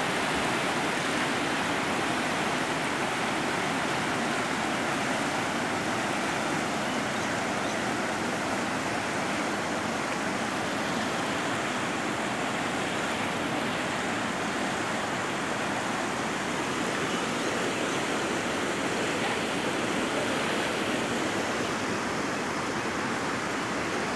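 Steady rushing of a muddy river in flood, its water running high and fast after two days of heavy rain.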